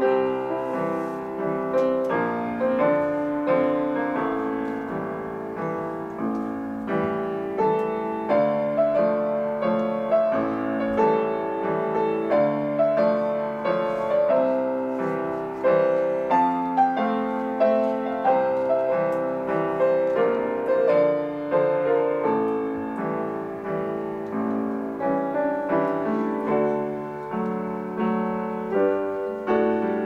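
Solo grand piano being played: a steady flow of notes, mostly in the middle range, with frequent accented chords.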